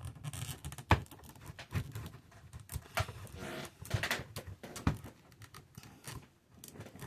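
Hands handling a plastic action figure and its plastic sword, with irregular clicks, taps and rubbing as the sword is pushed into place.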